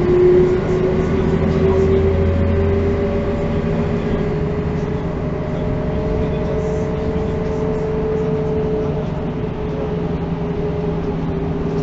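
A 1985 Mercedes-Benz O405 city bus heard from inside while driving: its diesel engine and drivetrain run with a whine that climbs slowly in pitch for about nine seconds as the bus gathers speed, then holds steady.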